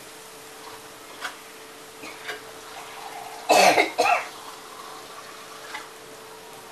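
A person coughs harshly, a two-part cough about three and a half seconds in, over a faint steady hum.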